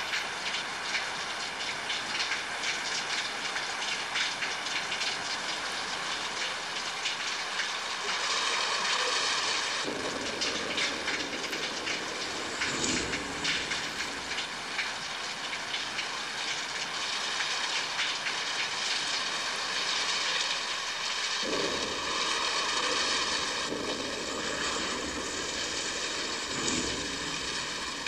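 Steady heavy rain, a dense hiss with fine patter. Low rumbles of distant thunder swell in twice, about a third of the way in and again near the end.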